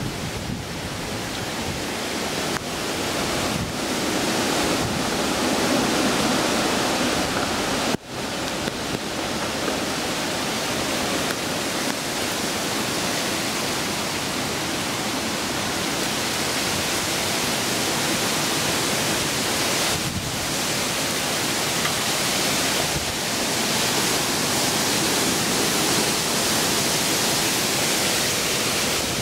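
Heavy rain and wind of a hurricane, a steady loud rushing noise that cuts out for an instant about eight seconds in.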